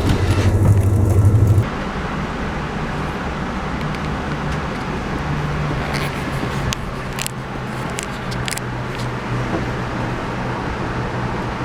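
Steady vehicle rumble. A loud low hum stops abruptly about a second and a half in, leaving a quieter, even running noise with a few faint clicks.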